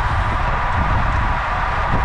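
Steady wind rush buffeting the microphone of a camera on a racing road bike at speed, with a constant hum.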